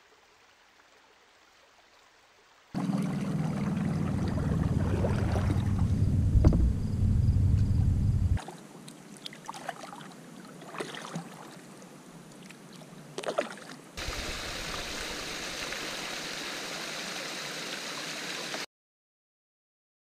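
Kayaking on a river, cut together from several clips: after a near-silent start comes a loud low rumble for about six seconds, then quieter water with a few short paddle splashes, then several seconds of steady rushing water from a small cascade falling off a rock ledge. It ends in a sudden cut to silence.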